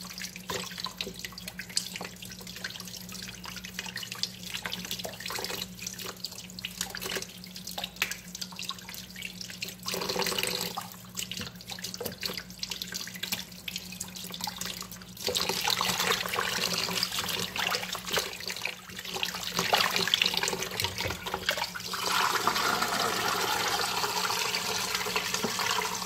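Hands sloshing and rubbing raw chicken hearts in a basin of water in a kitchen sink, with small splashes. From about halfway, water runs steadily and louder, and near the end the basin's water is poured off into the sink.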